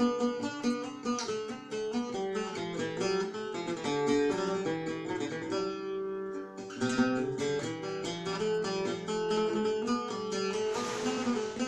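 Algerian mandole played solo with a pick: a quick run of plucked melody notes over ringing strings in a chaabi instrumental break, with a brief gap about six seconds in.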